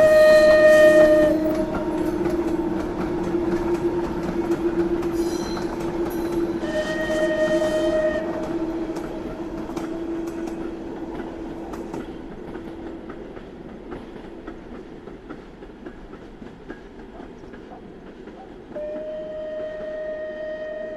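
ČSD class 475.1 steam locomotive passing and moving away, its steam whistle blowing three times: briefly at the start, again about seven seconds in, and once more near the end. Between the blasts the running noise of the train fades steadily.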